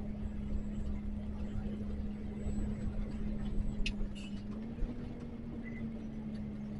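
Trailer truck's diesel engine droning steadily, heard inside the cab, its note rising slightly about five seconds in. A single sharp click a little before four seconds in.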